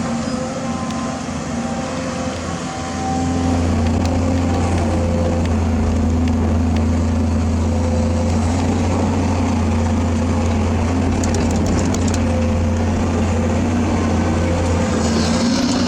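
Steady low engine-like drone of heavy machinery, stepping up in loudness about three seconds in and then holding even.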